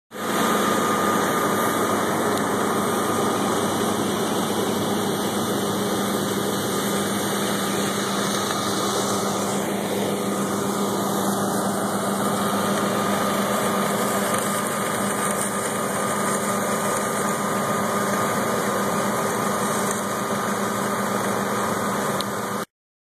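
Large diesel farm machine's engine running steadily, a constant even drone with a low hum.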